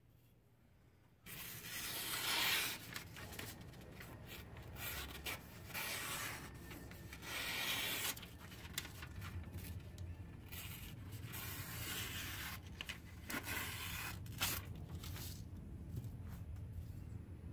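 Sharp Damascus steel knife blade slicing through sheets of lined paper held in the air, a run of rustling, hissing cuts starting about a second in, with loose paper rustling between cuts: a sharpness test.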